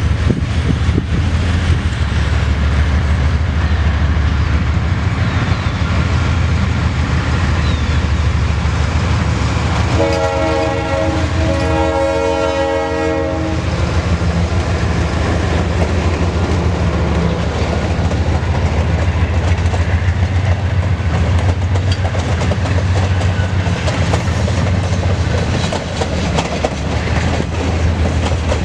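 Ferrosur diesel-electric locomotive passing close with its engine rumbling. It sounds its multi-tone horn for about three and a half seconds, starting about ten seconds in. The wreck train's cars, including an Orton rail crane and a caboose, then roll by with wheels clicking over the rail joints.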